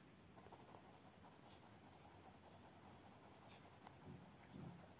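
Faint scratching of a white Derwent Chroma Flow colour pencil rubbed over a coloured swatch on paper, blending the colour, with a couple of soft low bumps near the end.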